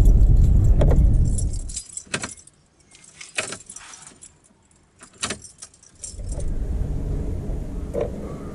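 Low wind rumble on the microphone that cuts off about two seconds in. Then a few sharp, light metallic clicks and jingles, with the rumble coming back near the end.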